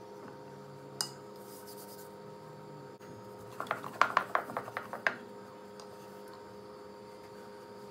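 Wooden rolling pin rolling dough on a floured board, knocking and clicking against the board in a quick run of about ten knocks over a second and a half, starting about three and a half seconds in. A steady electrical hum runs underneath.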